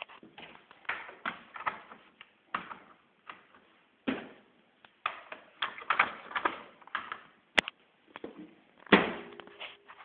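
Damp laundry being pulled out of a Miele W715 front-loading washing machine drum, with irregular rustling and handling noises. A sharp click comes near the end, then a single knock that sounds like the machine's door being pushed shut.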